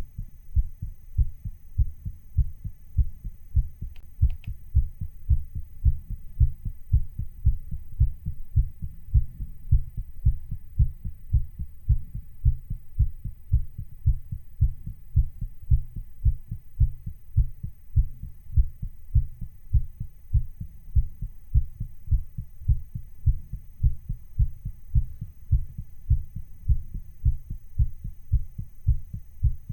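A human heartbeat, recorded and sped up a little: a fast, even run of low beats like a racing heart.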